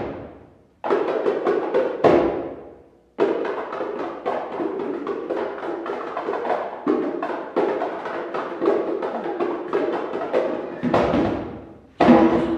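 Djembes and other hand drums played live by a percussion trio in a fast, dense flurry of strokes, breaking off twice for a moment in the first three seconds and then running on thickly.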